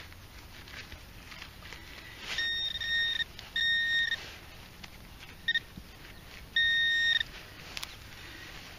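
Handheld metal-detecting pinpointer giving a steady high-pitched beep in three short bursts and one brief blip as it is swept through the dug soil, signalling a metal target close to its tip.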